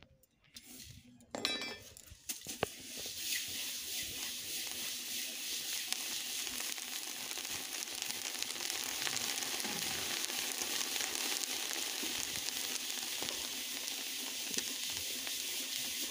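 Rice grains poured into hot sand in a metal pot over a stove and stirred with a stick, giving a steady dry sizzling hiss that starts about two seconds in; this is the stage of heating the rice in sand to puff it into muri.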